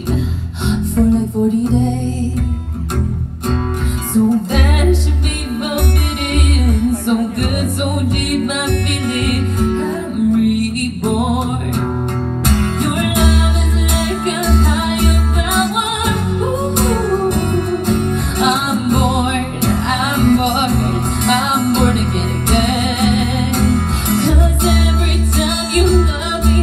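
Live pop song: a woman singing into a microphone over guitar accompaniment.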